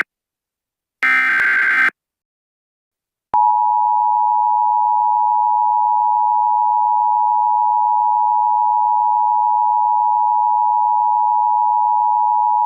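Emergency Alert System signal: the last of the SAME header data bursts, a harsh second-long screech of digital tones, about a second in. After a short silence the two-tone EAS attention signal starts about three seconds in, a loud steady tone held without a break.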